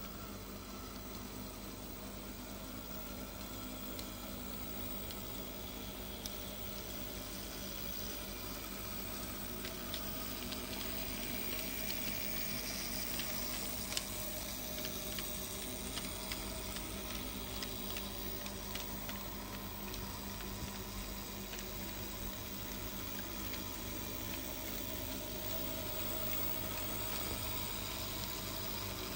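HO-scale model train running: a brass PFM three-truck Climax locomotive and its log cars rolling along the track, a steady hiss with faint clicks. It grows a little louder midway as the cars pass close, with one sharper click.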